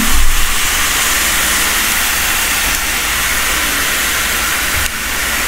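Marinated lamb sizzling steadily on a hot grill.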